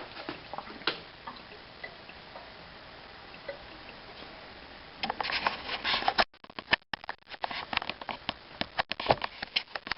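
Small brass faucet valve parts being handled: faint scattered clicks at first, then a quick run of sharp clicks and taps in the second half.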